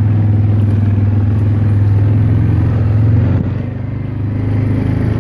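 Yamaha Grizzly 400 ATV's single-cylinder engine running steadily under throttle while riding over rough ground; it eases off about three and a half seconds in, then picks back up.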